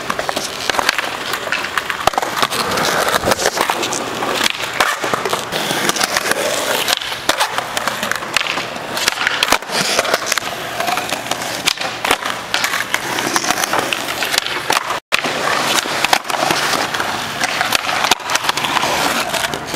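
Skateboard wheels rolling on a concrete skatepark surface, with repeated sharp clacks of the board's tail popping and the deck landing as flat-ground tricks are tried. The sound drops out briefly once, late on.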